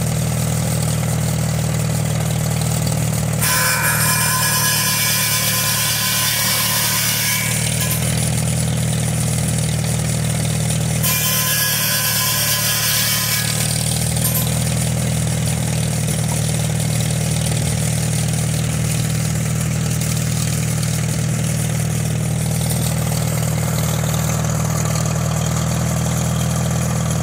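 International Harvester tractor engine running steadily at a constant speed, driving a freshly sharpened buzz saw. The blade cuts through a log twice, each a loud, high-pitched cutting noise lasting a few seconds, about 3 s in and again about 11 s in.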